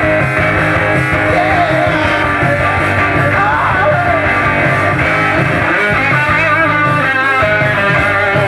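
Live rock band playing, with electric guitar over bass and drums, and a sung "Yeah" about two seconds in.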